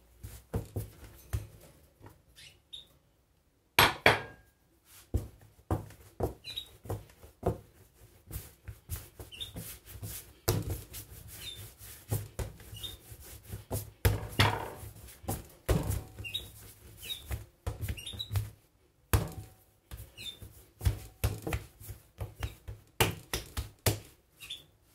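Hands kneading moist, elastic brioche dough on a countertop: irregular slaps and thumps with short squeaks.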